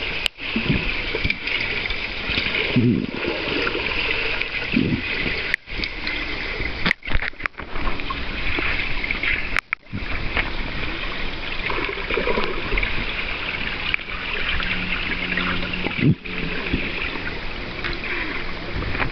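Muffled underwater rushing and bubbling of swimming-pool water, stirred by a swimmer kicking with flippers, heard through a submerged camera. The sound briefly drops out several times.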